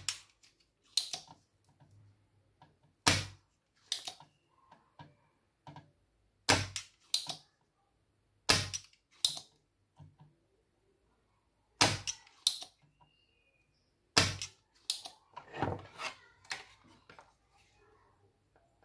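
About a dozen sharp clicks and knocks at irregular intervals, several in close pairs, from hand tools and parts being worked on a motherboard while its swollen capacitors are replaced.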